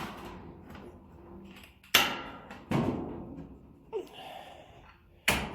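A mallet striking sheet metal as it is worked into a bend: three sharp knocks and one lighter one, spaced about a second apart, each with a short ring.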